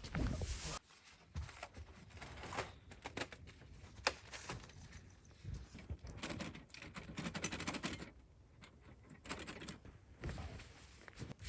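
Irregular rustling and crunching with scattered sharp clicks from camping gear and tent being handled and packed up in snow. A loud stretch cuts off sharply within the first second, and there is a dense run of crackling around the middle.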